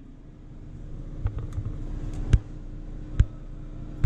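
A few short, sharp plastic clicks, two louder ones near the middle, as the ink-tube clamps and connectors on a printer's ink damper lines are handled and snapped. A steady low hum runs underneath.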